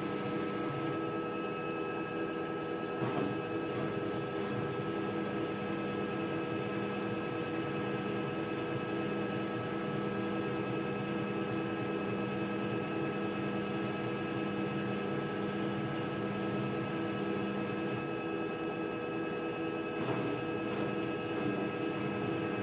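Haier washing machine in its spin cycle: a steady drum-motor hum with several steady whining tones, and a faint tick or two.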